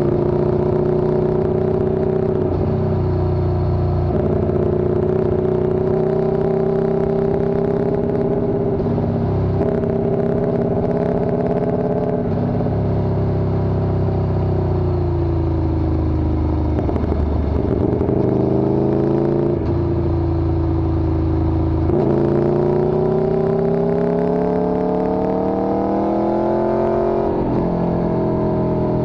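Motorcycle engine under way. The note holds fairly steady, falls as the bike slows in the middle, then climbs as it accelerates again, with a quick dip and recovery near the end like a gear change.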